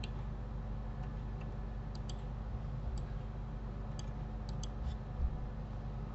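Computer mouse clicking: several faint, sharp clicks spread through the few seconds, over a steady low electrical hum, with a couple of soft low thumps about five seconds in.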